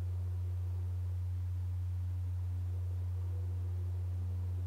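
A steady low drone tone, held unchanged with faint higher overtones above it.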